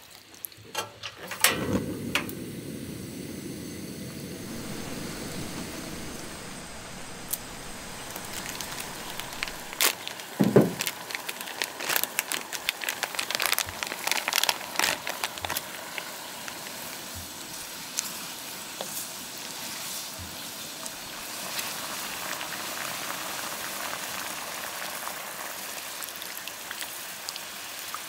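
Rain falling steadily, pattering with many sharp drips and taps. A dull knock sounds about ten seconds in.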